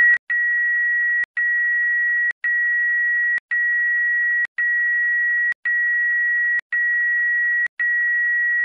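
Medical machine alarm: a steady, high electronic tone broken by a short gap about once a second, cutting off near the end.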